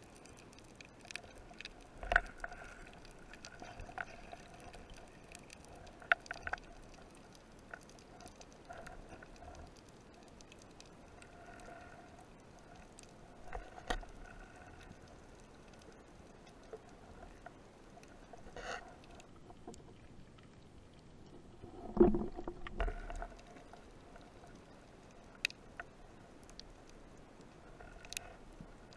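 Underwater sound picked up by a camera mounted on a speargun: a faint steady hiss with scattered clicks and knocks, a louder thump about 22 seconds in, and a faint hum that comes and goes.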